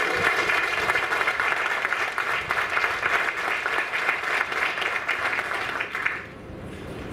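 Audience applauding, with the clapping dying away about six seconds in.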